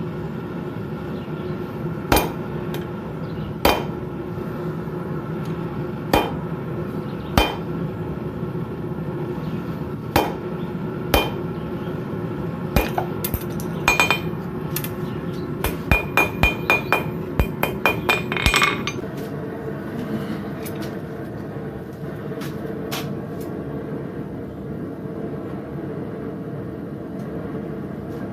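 Blacksmith's hammer striking metal on an anvil: single blows a second or two apart, then a quicker run of ringing strikes about two thirds through. A steady hum runs underneath.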